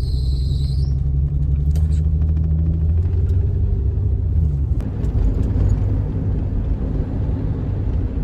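Car cabin noise while driving: a steady low engine hum and road rumble. The hum dips in pitch about four and a half seconds in, then gives way to a steadier rumble.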